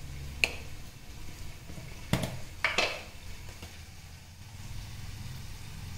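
Kitchen containers and lids handled on a stone countertop: a sharp click, then two short clattering knocks about half a second apart, over a steady low hum.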